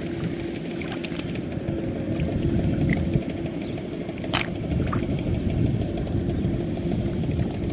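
Steady low rumble with a faint hum. Over it, hands gather snails in shallow water with light splashes, and a sharp click about four seconds in as a snail drops into a wicker basket.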